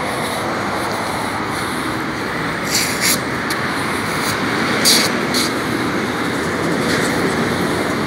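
Steady vehicle and road noise, with a few short clatters around three and five seconds in.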